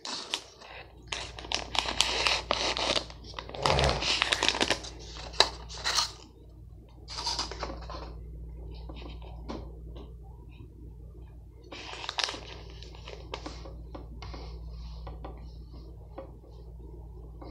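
Plastic snack bag of gummy bears crinkling and crackling as it is handled, in irregular bursts, busiest in the first few seconds.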